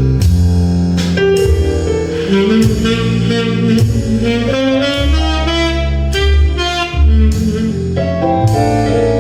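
Recorded music with a melody over strong bass and regular cymbal or drum strikes, played loudly through a home-built speaker system of horn speakers, two woofers and three tweeters driven by a TDA7294 chip amplifier.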